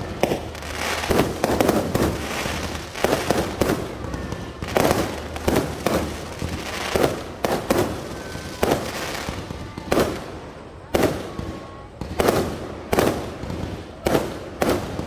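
Aerial fireworks bursting overhead in quick succession, a sharp bang about every second with crackling between.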